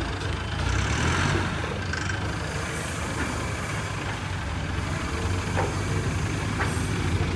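A steady low engine rumble, like a heavy vehicle running, with a constant hiss above it.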